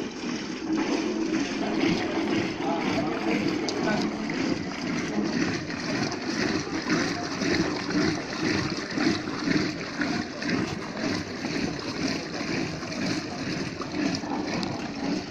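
Curd being churned in a clay pot by a wooden churning stick spun back and forth with a rope (bilona churning): rhythmic sloshing and splashing as the curd is turned into buttermilk and butter.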